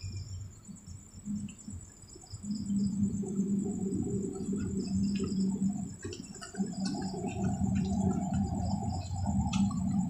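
Crickets or similar night insects trilling in a steady, high-pitched chorus. From about two and a half seconds in, a low mechanical hum joins them, dipping briefly about six seconds in.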